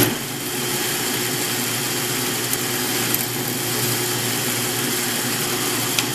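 Drill press motor running steadily while a brad-point wood bit bores into a wooden board.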